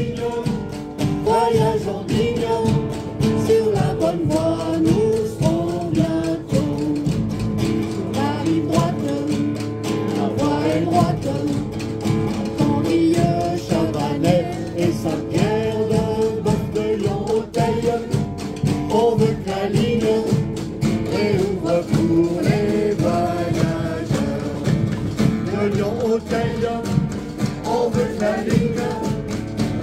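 Group singing a French rally song in chorus, calling for passenger trains, with instrumental accompaniment keeping a steady beat.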